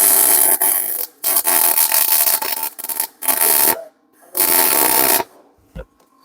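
MIG wire-feed welder arc crackling in several bursts of about a second each with short breaks between, welding a nut onto a broken exhaust stud so the stud can be turned out.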